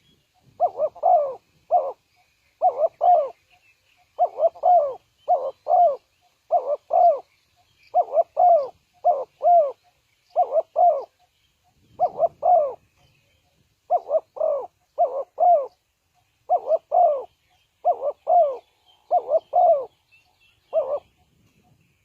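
Spotted dove cooing: short groups of two or three low coos, repeated about once a second, with the last group near the end.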